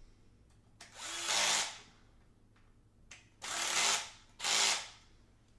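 Cordless drill running in three short bursts, the second and third close together, as it fastens the rig frame's pieces together.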